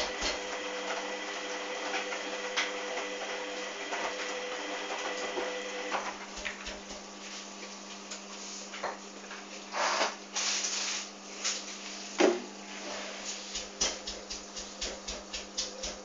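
Hoover front-loading washing machine running its rinse: a steady motor hum and whine that stops about six seconds in, then scattered clicks and a few short rushes of noise.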